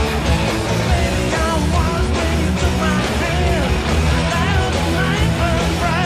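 Hard-rock band playing live, with electric guitar over bass guitar and drums. A high melody line bends up and down in pitch from about a second and a half in.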